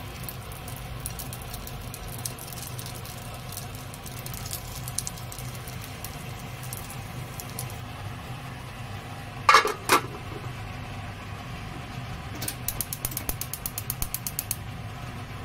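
Frozen gyoza frying in an oiled pan, with faint scattered crackling over a steady low hum. About two-thirds of the way in, a metal pan lid is set on the pan with two sharp ringing clanks, followed a few seconds later by a quick run of light rattling clicks.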